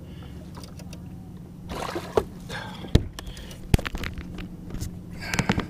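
A largemouth bass being landed and handled in a plastic fishing kayak: small water splashes and rustling, with two sharp knocks a little under a second apart about three seconds in.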